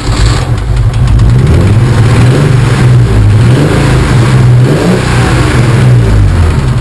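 BMW M30 straight-six engine running on LPG, loud and steady, its speed wavering up and down a little.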